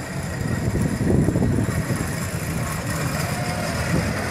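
Small vintage car's engine running slowly and steadily as the car rolls past at parade pace.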